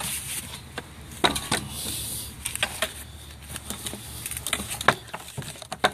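Irregular clicks, knocks and rattles of a homemade fin-drive linkage, made of PVC pipe, EMT conduit and a plywood fin, as its tiller is worked back and forth by hand.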